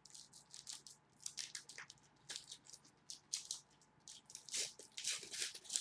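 Foil trading card pack wrapper being torn open and crinkled by hand, a quick, irregular run of short crackles.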